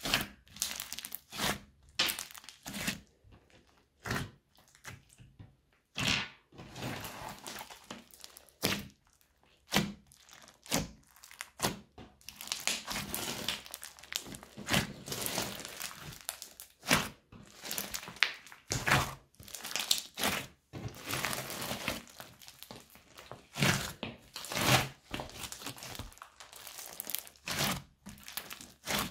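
Hands squeezing, stretching and folding a large mass of thick slime mixed with foam beads and sprinkles, giving sticky squelches, sharp pops and crunchy crackling in irregular bursts.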